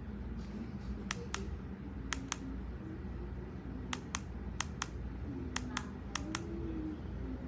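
A series of sharp clicks, mostly in pairs about a fifth of a second apart, over a steady low hum.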